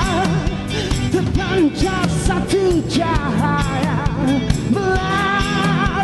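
Rock band playing with sung vocals over regular drum hits; a melody line wavers with strong vibrato.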